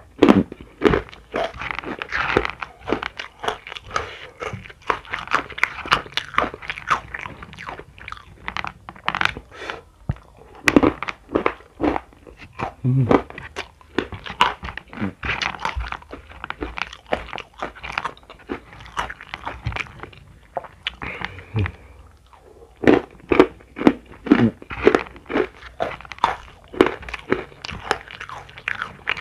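Close-up chewing of sukro, crunchy flour-coated peanuts, eaten by hand: a steady run of sharp, irregular crunches from the mouth.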